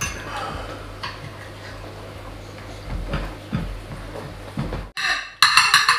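Faint clinks of cutlery on plates and dishes at a dinner table. About five seconds in, background music with a quick, even percussive beat starts abruptly.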